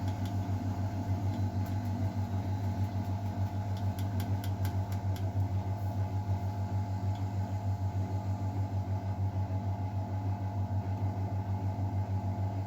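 Miele Novotronic W912 washing machine running: a steady low hum with a fast, even pulsing.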